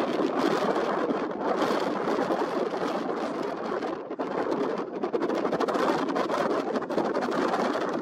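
Wind gusting and buffeting the microphone: a steady, rough rushing noise that swells and dips.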